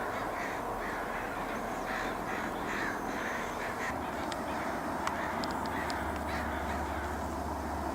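Birds giving a series of short, harsh calls, several in quick succession over the first half, then fading.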